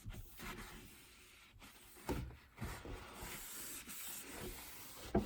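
Paper towel rubbing polish over a kitchen cabinet door, an uneven swishing wipe in several strokes, with one sharp knock near the end.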